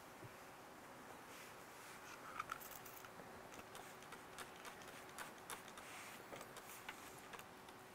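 Near silence: room tone with a faint steady hum and a scattering of faint small clicks.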